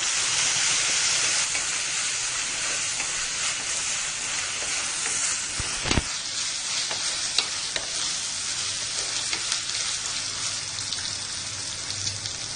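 Ginger garlic paste and fried onions sizzling in hot oil in an aluminium pressure cooker while being stirred with a wooden spatula, with one sharp knock about halfway through.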